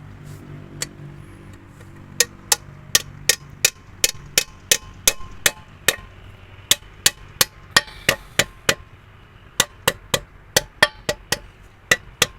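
Hammer blows on metal, about three sharp ringing strikes a second in steady runs with two short pauses, in a truck repair workshop.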